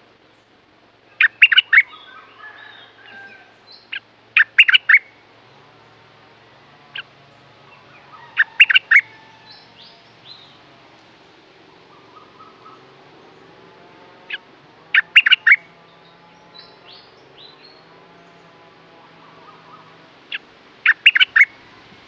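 Stripe-throated bulbul singing: five short, loud phrases of three or four quick notes each, spaced several seconds apart.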